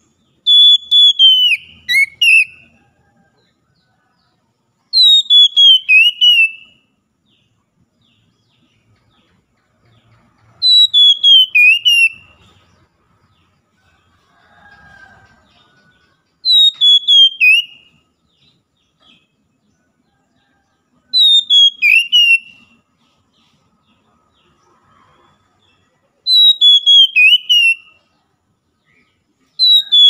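Oriental magpie-robin singing: a loud phrase of quick whistled notes sliding downward in pitch, about two seconds long, repeated much the same about every five seconds.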